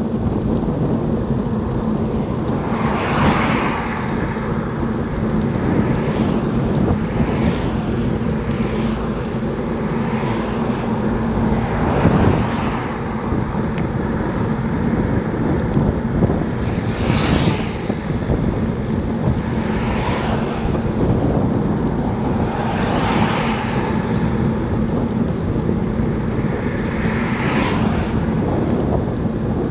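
Wind buffeting the microphone of a road cyclist's camera while riding along a main road, over a steady low hum. About eight passing vehicles each swell and fade as a whoosh over about a second.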